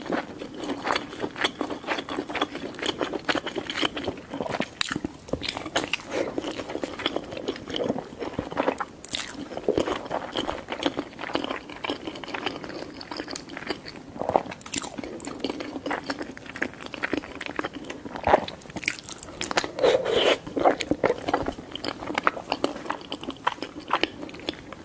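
Close-miked eating: repeated biting, crunching and chewing of crisp food in many irregular small bites.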